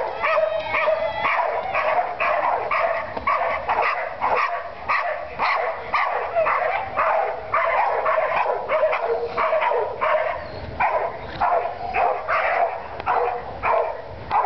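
Dogs barking rapidly and nonstop, several short sharp barks a second. This is the excited barking typical of dogs worked up at a flyball warm-up.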